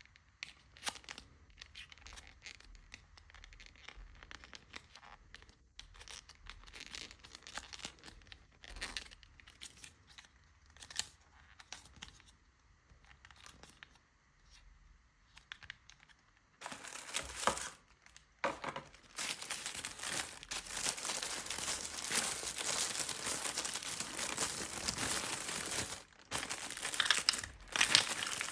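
Plastic toy wrapper being handled and torn open. Faint scattered rustles and clicks come first, then about two thirds of the way in a steady, louder crinkling of the plastic begins and goes on.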